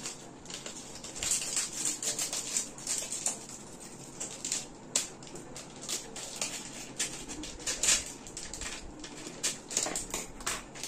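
Plastic packaging of a packet of dark chocolate compound being handled and opened: irregular rustling with scattered clicks and light taps.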